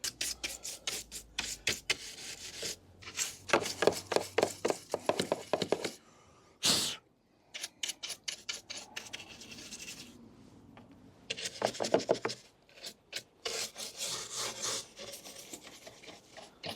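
Quick repeated rubbing and scraping strokes on the plastic mirror housing, in runs with short pauses, as the dust and rubbish inside it are cleaned out; one short louder burst about seven seconds in.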